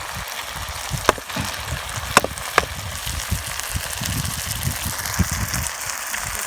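Salmon and holy basil stir-fry sizzling steadily in a pan as green onions are stirred in, with three sharp clicks in the first few seconds.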